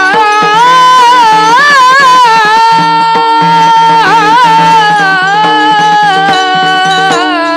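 A man singing one long, ornamented note in Varkari bhajan style, his voice wavering and sliding in pitch and settling a little lower in the second half, over a steady drone, with taal hand cymbals striking.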